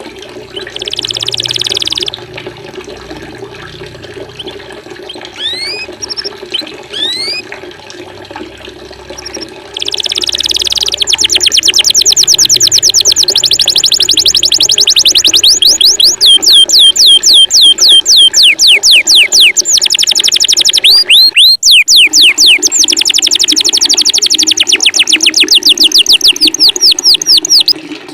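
Songbird song over a steady running-water background. First come a couple of short, harsh, buzzy calls and a few rising whistles. Then, after about ten seconds, comes a loud, fast series of high whistled notes, each sweeping downward, about five a second, broken once briefly.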